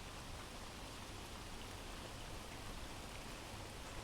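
Steady rain recording playing faintly as a background ambience.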